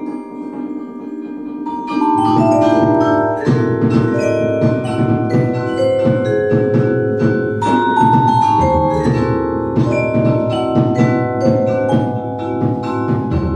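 Percussion quartet playing: vibraphone and marimba ringing sustained chords, then from about two seconds in a fuller, louder passage of quick struck mallet notes and chords with sharp percussive strokes.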